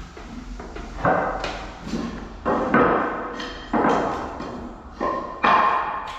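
Hand plane shaving a wooden plank, about six quick rasping strokes, each starting sharply and trailing off within a second.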